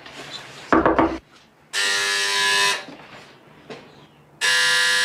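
Electric doorbell buzzer sounding twice, a steady buzz of about a second each time, with a pause of under two seconds between. A brief low thud comes about a second in, before the first buzz.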